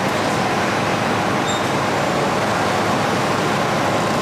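Steady hum of city road traffic, an even wash of noise with no single vehicle standing out.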